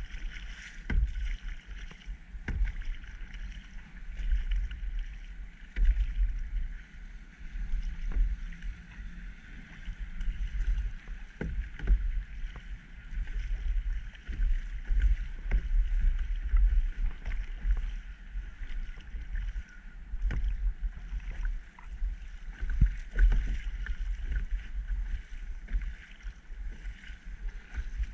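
Kayak paddling: the paddle dipping and splashing in the water, with scattered sharp knocks at irregular intervals. A low rumble sits under it.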